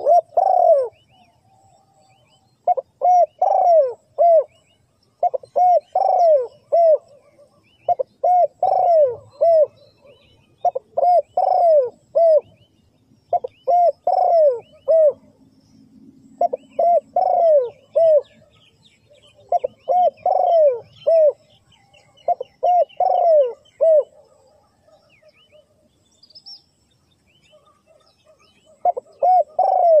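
Spotted dove cooing: a phrase of three or four notes repeated about every two and a half seconds, pausing for several seconds near the end before another phrase. Faint high chirps sound behind it.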